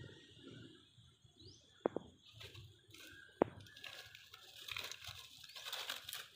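Dry leaves rustling as a macaque roots through them, mostly in the second half, with two sharp clicks earlier on.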